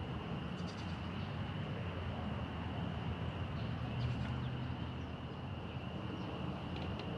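Outdoor evening ambience: a steady high-pitched chorus over a low rumble, with a few faint clicks.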